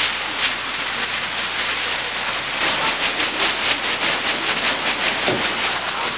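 Large sheets of paper being crumpled, torn and shaken by several people at once: a dense, continuous crackling rustle.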